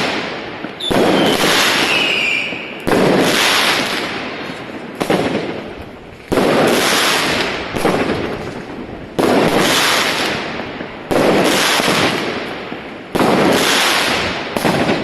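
Consumer firework battery firing shot after shot, about seven in all at roughly two-second intervals, each a sudden bang trailing off over a second or two. A falling whistle sounds about a second in.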